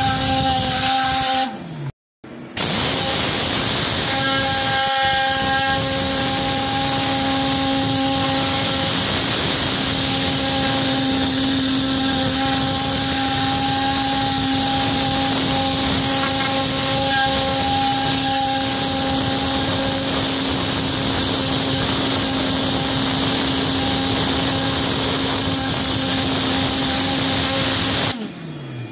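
Tornador air cleaning gun blasting compressed air and spraying cleaner into carpeted floor mats: a loud, steady hiss with a steady hum underneath. It cuts out briefly about two seconds in and stops near the end.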